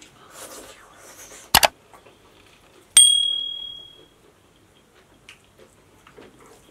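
Subscribe-button sound effect: a sharp double click about one and a half seconds in, then a single bright bell ding that rings out for about a second. Faint chewing and eating sounds lie underneath.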